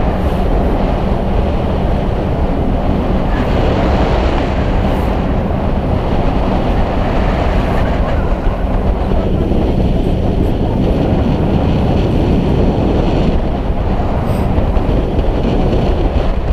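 A whale-watching boat's engine drones steadily under way, with a constant low hum and a rushing of wind and water over it.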